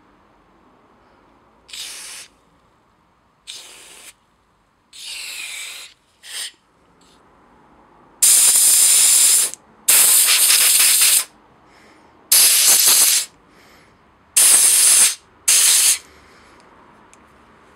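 Aerosol spray can blown through a thin red extension straw into a small-engine carburetor's passages and jets, cleaning them out. A few short, quieter squirts come first, then five loud hissing blasts of about a second each.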